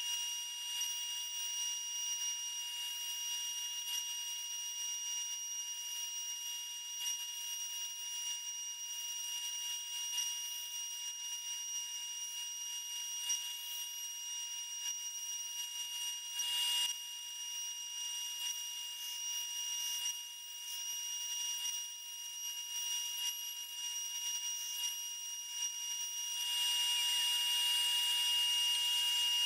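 CNC router spindle running with a steady, high-pitched whine of several held tones over a hiss as the bit cuts a circle into fibreboard; the whole sound gets louder near the end.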